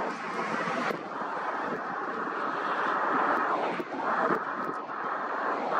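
Boeing C-17 Globemaster III's four turbofan engines on landing approach: steady jet noise with a faint high whine, swelling and easing slightly.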